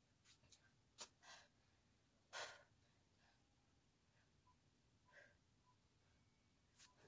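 Near silence broken by a few faint breaths, with two clearer exhales about one and two and a half seconds in.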